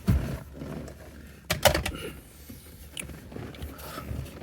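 Handling noise of hard objects being moved and set down: a knock right at the start, a sharper clack about a second and a half in, and a few lighter clicks after.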